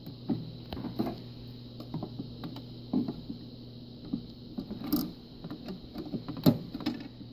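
Plastic clicks and knocks as parts and the black plastic cover are fitted back onto a Canon imageRUNNER C6055 paper-deck pickup assembly. The loudest knock comes a bit over six seconds in, over a steady low hum.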